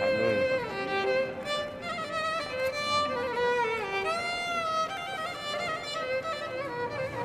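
Background music: a violin melody of held notes with slides between them.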